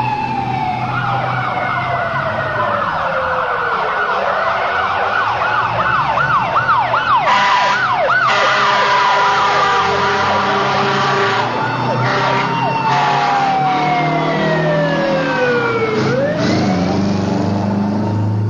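Emergency vehicle sirens sounding as the vehicles pass. A fast up-and-down siren pattern runs through the first half. Twice, a siren's pitch slides steadily down as it goes by, the apparent drop in frequency of the Doppler effect.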